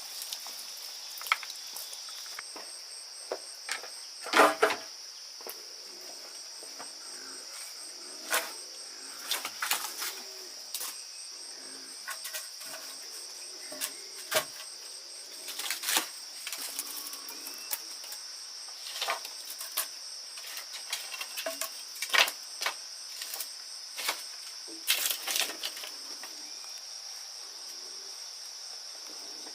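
A steady high-pitched chorus of crickets or similar insects, with a fainter rapid pulsing chirp above it. Scattered sharp clicks and knocks sound over it throughout, the loudest about four seconds in and again near twenty-two seconds.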